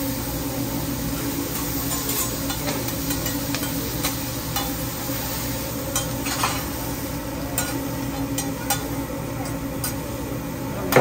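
Vegetables sizzling on a hibachi flat-top griddle while a metal spatula scrapes and taps against the steel as they are stirred. A steady low hum runs underneath.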